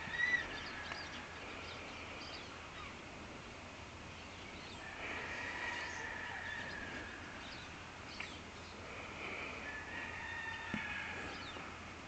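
Distant bird calls: a short chirp right at the start, then longer, drawn-out calls about five seconds in and again near the end, with a couple of faint taps between them.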